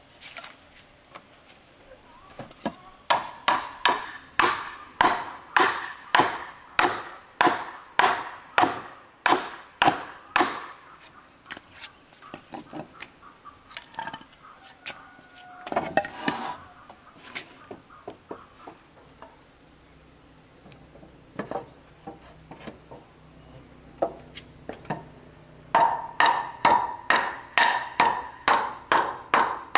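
Repeated blows of a wooden mallet on hardwood timbers during bed-frame joinery, about two to three knocks a second with a short ring to each. The blows stop a few seconds before the middle, giving way to a few scattered knocks and the clatter of timber being handled, then start again steadily near the end.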